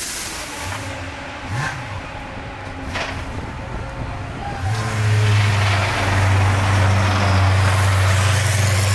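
Race car engine running, with a quick rev blip about a second and a half in, then from about halfway a louder engine note held at one steady pitch.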